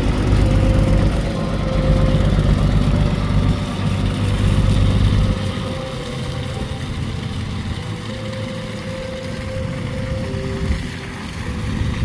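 Diesel engine of a large articulated water tanker truck running as it drives slowly past close by. It is loudest for about the first five seconds, then quieter and steadier as the truck pulls away.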